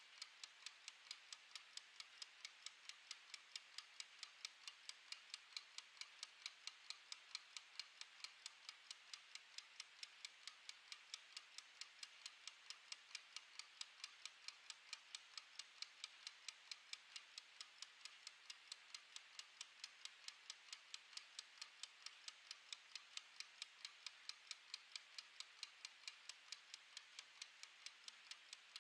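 Mechanical wind-up kitchen timer ticking faintly and evenly, several ticks a second, as its clockwork runs down the last minute or so before the bell.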